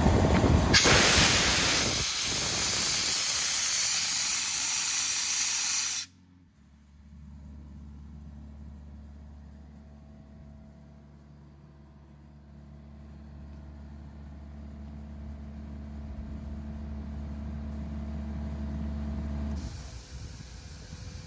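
Kaeser M43 mobile diesel compressor with compressed air hissing out loudly for the first several seconds. The hiss cuts off suddenly, leaving the Kubota diesel engine running with a steady, much quieter low hum. A faint hiss comes back near the end.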